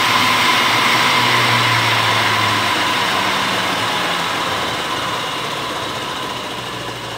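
Atlas 12x48 metal lathe driven by a treadmill DC motor, its chuck spinning near 1,000 RPM and running steadily, then getting gradually quieter as it slows while the speed controller is turned down.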